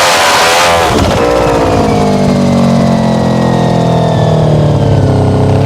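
Motorcycle engine being revved hard, then dropping back about a second in to lower revs that sag slowly, with a sharp blip of the throttle near the end.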